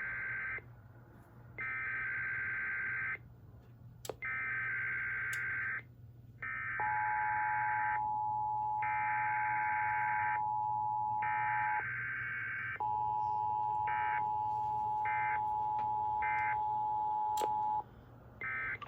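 Emergency Alert System relay: repeated buzzy SAME header data bursts, each about a second and a half long, then the steady two-tone EAS attention signal held about five seconds, twice, with more data bursts overlapping it. Three short data bursts sound during the second attention tone.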